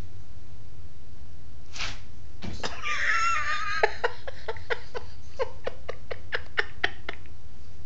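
A woman laughing: a rapid run of short, evenly spaced 'ha' pulses lasting about three seconds, opening with a higher wavering sound just before.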